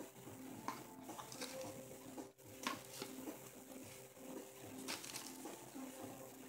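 Quiet handling noise: scattered light rustles, taps and clicks as a boxed tarot deck in a laced wrap is touched and picked up, over faint steady background tones.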